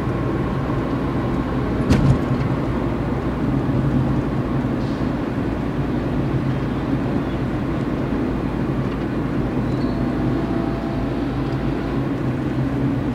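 Car driving at a steady pace: a constant low engine and road hum heard from inside the car, with one sharp knock about two seconds in.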